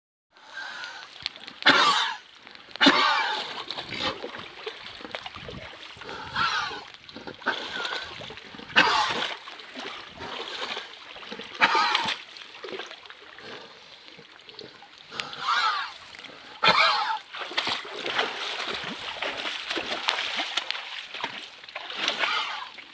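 An animal coughing in repeated harsh fits, about eight loud coughs spaced a second or several apart, with quieter rough breathing sounds between them.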